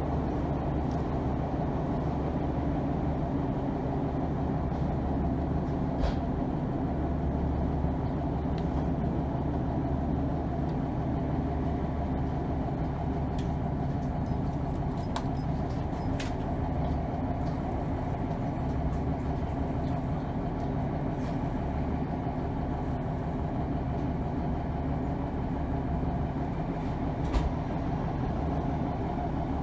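Cabin sound of a Class 150 Sprinter diesel multiple unit on the move: a steady low drone from its underfloor diesel engine mixed with wheel and rail noise, with a few brief sharp clicks and knocks along the way.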